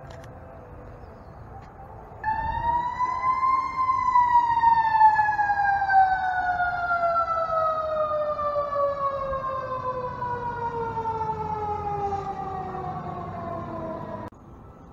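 Fire engine siren: a single long wail that rises briefly, then falls slowly and steadily in pitch for about ten seconds. It starts suddenly about two seconds in and cuts off shortly before the end.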